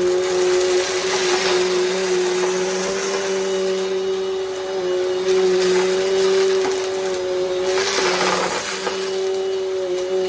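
Bissell compact vacuum cleaner running with a steady motor whine, while debris from the mess test rattles and crunches up the nozzle. The crunching swells about a second in and again near the end.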